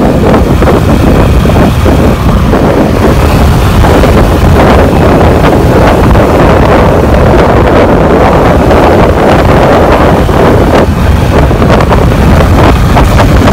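Wind rushing and buffeting on the microphone of a moving Suzuki Access 125 scooter as it gathers speed, with the scooter's running and road noise underneath. Loud and steady throughout.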